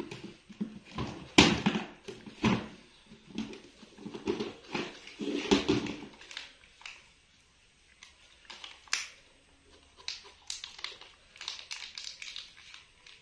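A baby macaque eating a slice of tomato, with nearby handling: short clicks, smacks and soft knocks, busy through the first six seconds and sparser after that.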